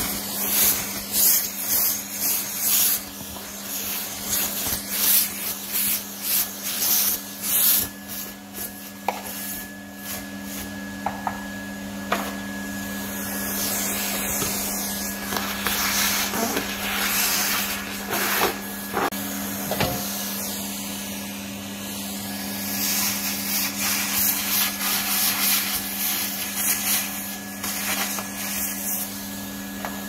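Numatic Hetty cylinder vacuum cleaner running steadily, a hum with a rushing hiss of suction. Bursts of crackling and rattling come and go as loose debris is sucked up the metal wand, thickest in the first few seconds and again near the end.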